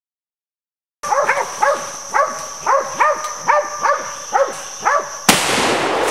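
Bay dogs barking repeatedly, about two barks a second, starting about a second in, at a boar held at bay. Near the end a single loud .44 Magnum gunshot cracks out over the barking: the kill shot on the boar.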